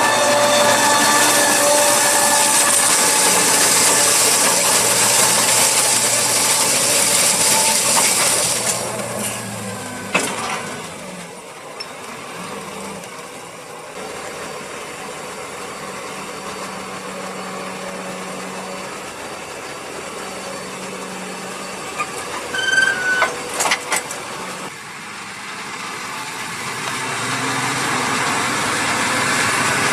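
Fendt 930 Vario tractor's six-cylinder diesel running under load as it pulls a slurry tanker and injector. The engine and running gear are loud as the rig passes close, then fainter and more distant from about nine seconds in. A short cluster of sharp knocks comes about two-thirds through, and the engine sound swells again near the end.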